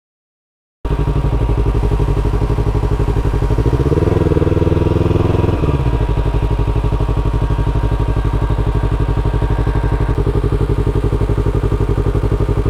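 Yamaha R3 parallel-twin motorcycle engine idling with an even pulse. It cuts in less than a second in after a brief dropout of all sound, is revved up for about two seconds around four seconds in, then drops back sharply to idle.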